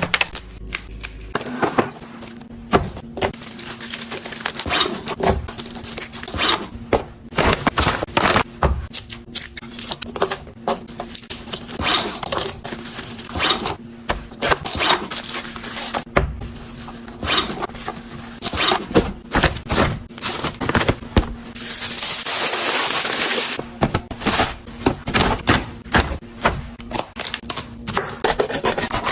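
Containers and food items handled and set down while a refrigerator is being organised and restocked: a busy run of clicks, taps, light knocks and scrapes, with a brief rushing noise a little past the middle.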